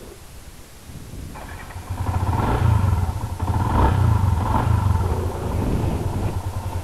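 Small single-cylinder four-stroke motorcycle engine coming to life about a second in, revved in three short blips, then running at an even idle.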